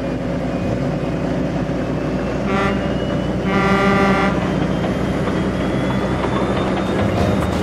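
Diesel locomotive sound effect: a steady low engine rumble, with the horn sounded twice, a short toot about two and a half seconds in and a longer one about a second later.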